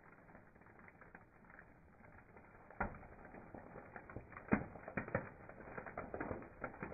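Car tyre rolling slowly onto a row of soft, rubbery balloon-shaped toys on asphalt, squashing them. Quiet at first, then from about a third of the way in, a run of irregular crackles and sharp snaps, the loudest near the middle.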